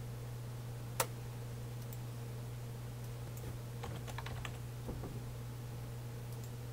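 A few light computer keyboard taps as a number is typed, after one sharp click about a second in, over a steady low electrical hum.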